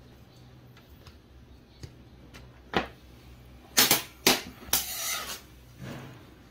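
Pliers and a knife handled on a metal worktable: a few faint clicks, a sharp click nearly three seconds in, then two loud metallic knocks and a short scraping clatter around four to five seconds in, and a softer knock near the end.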